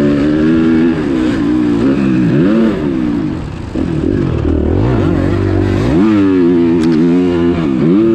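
Motocross dirt bike engine revving up and easing off again and again as the rider works the throttle, its pitch repeatedly climbing and dropping, with a brief let-off about three and a half seconds in.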